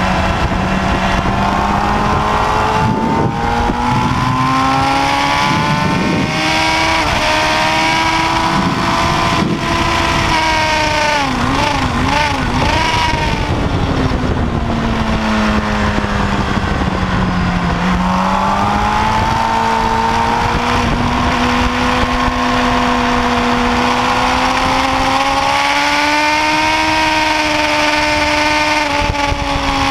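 Kawasaki ZX-10R's inline-four engine pulling hard on track, heard onboard with wind rush: its note climbs for about ten seconds, wobbles quickly up and down for a couple of seconds, drops away, then climbs again near the end.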